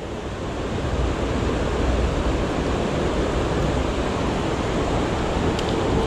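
Steady rush of a mountain creek's running water.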